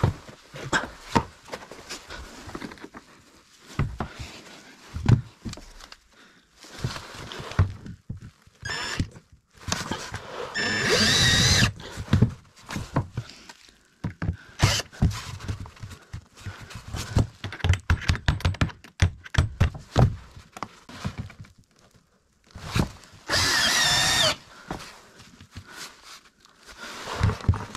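Repeated knocks and clatter of parts being handled and fitted, broken twice by short runs of a power drill driving in, each with a rising-and-falling whine lasting about a second and a half: once near the middle and once near the end.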